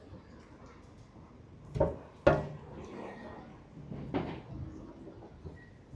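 Three sharp knocks, two close together about two seconds in and a third a couple of seconds later, over street ambience with faint voices of passers-by.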